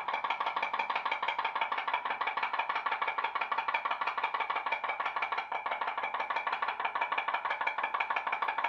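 Homemade pop-pop boat boiler, a free-flexing aluminium drinks-can diaphragm heated by a tea light, popping rapidly and steadily, many pops a second, as it drives the boat along.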